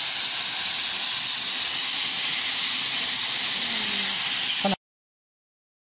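CNC plasma cutting torch running on aluminium: a steady, loud hiss that cuts off abruptly about four and a half seconds in.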